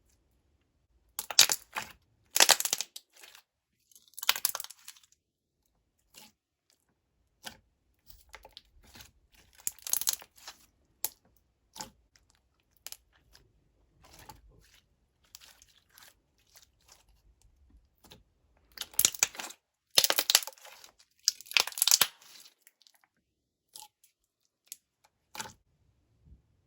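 Hands playing with a thick clear slime: irregular bursts of sticky crackling and clicking pops as it is squeezed, stretched and folded, with louder bouts about a second in, near the middle and after about two-thirds of the way through.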